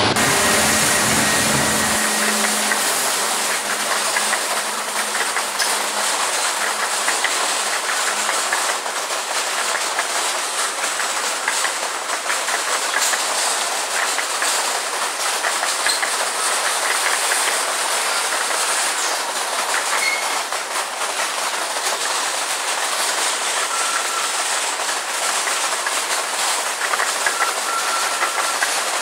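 Empty grain hopper cars of a freight train rolling past, with a steady hiss of wheels on rail and wheels clicking over the rail joints. The low drone of the departing locomotives fades out about two seconds in, and there are a few faint, brief wheel squeals near the end.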